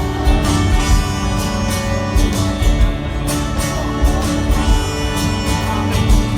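Live band music: strummed acoustic guitar over drums and bass, with regular drum hits.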